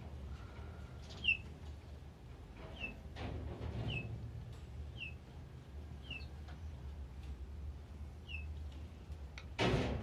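A small caged songbird repeats a single short chirp that slides downward, about once a second, over a steady low hum. Just before the end comes a brief loud rustle.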